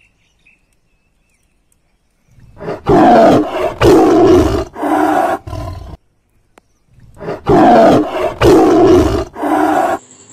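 A tiger roar played as a sound effect, twice over: a run of three or four loud roars starts about two seconds in, and after a short pause an almost identical run follows.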